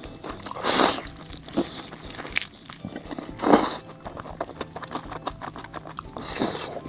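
Someone biting into crunchy fried food and chewing it: three loud crunching bites spaced a few seconds apart, with small crackles of chewing in between.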